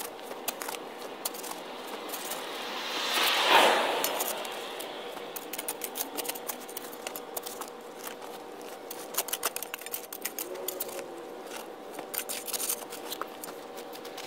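Shovel digging packed, gravelly dirt out of a car tire: a steady run of short scrapes and clicks of the blade in soil and small stones, with one louder, longer scrape about three and a half seconds in.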